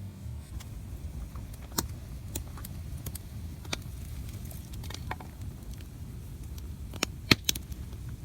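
Wood campfire crackling: scattered sharp pops and snaps over a low steady rumble, with a pair of louder pops about seven seconds in.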